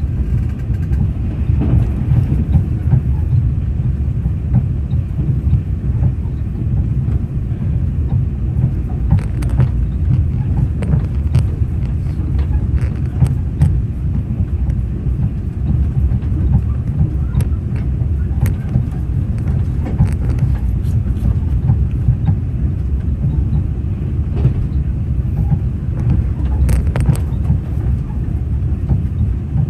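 Train running along the track: a steady low rumble with scattered clicks of wheels over rail joints.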